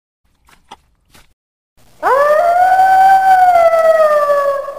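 Wolf howling: one long howl starting about two seconds in, sweeping sharply up in pitch, then held and slowly sinking. A few faint taps come before it.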